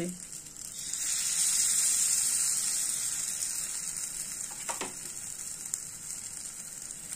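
Spoonfuls of carrot malpua batter sizzling in hot ghee in the wells of an appam pan. The sizzle swells about a second in as batter goes into a well, then slowly dies down.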